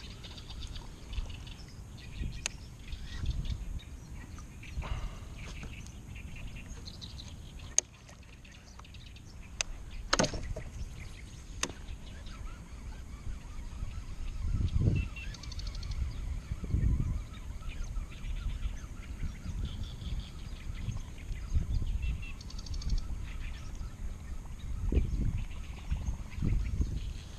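Outdoor ambience from a fishing kayak on the water: a low rumbling noise that swells now and then, faint bird calls, and a few sharp clicks and knocks.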